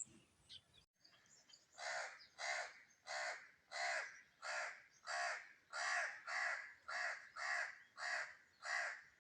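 A crow cawing over and over in a steady series of harsh calls, about one and a half a second, starting about two seconds in.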